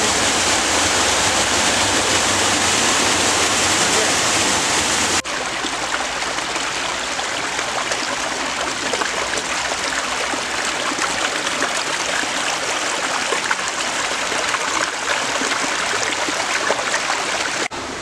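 A small waterfall pouring over rocks makes a steady rushing hiss. About five seconds in it cuts to a shallow stream running between shelves of ice, a quieter babbling of water with many small splashes and trickles.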